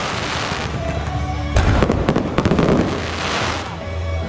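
Aerial firework shells bursting overhead: a loud bang about one and a half seconds in, then a dense crackling of glittering stars.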